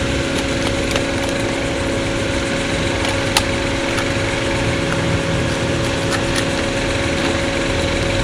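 A steady motor hum, like an engine or machine running, holding a few fixed tones. Scattered sharp clicks sound over it, the loudest a little over three seconds in.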